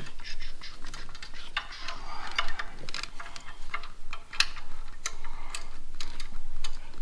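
Spark plug wire boot being pushed and worked onto an ignition coil: rubber and plastic rubbing, with a run of small clicks and knocks as it seats.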